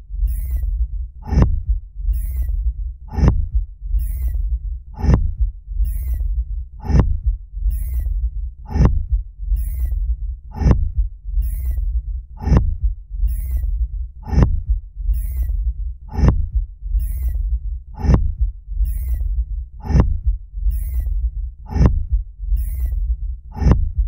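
Fremen thumper sound effect: the rhythmic pounding of a stake in the sand that calls a sandworm, one heavy thud a little under every two seconds, each followed by a short high hiss, over a steady deep rumble.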